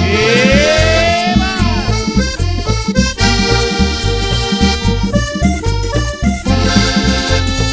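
Live tambora band playing an instrumental passage: a lead melody that opens with a rising glide, over a steady bass and drum beat.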